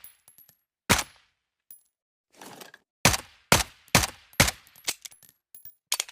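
Suppressed M1911 pistol firing: a single shot about a second in, then a quick string of about five shots, each a sharp muffled crack, with light metallic clinks between them.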